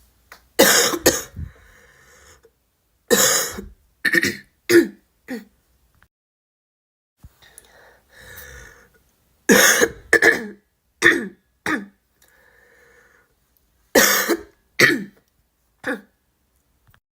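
A girl coughing in repeated bouts of several short, harsh coughs each, with pauses between the bouts.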